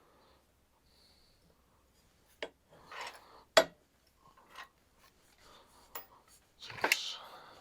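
Scattered light clicks and knocks of metal tools and parts being handled on a workbench, the loudest a little past halfway, then a short scraping rub near the end.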